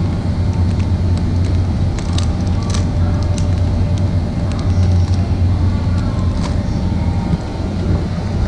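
Steady low hum of a supermarket's open refrigerated display cases, with a few light clicks and crinkles from a plastic-wrapped pastry pack being handled.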